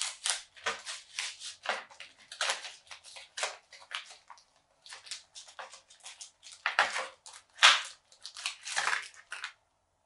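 A MetaZoo Mothman cardboard blister pack being torn and peeled open by hand: a run of irregular crinkling, ripping tears, with the loudest about three-quarters of the way through.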